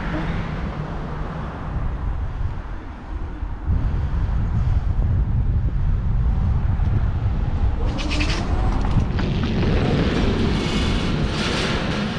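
Wind buffeting the microphone and road rumble from an electric scooter being ridden slowly on a flat rear tyre. A louder rushing noise swells about eight seconds in and again near the end.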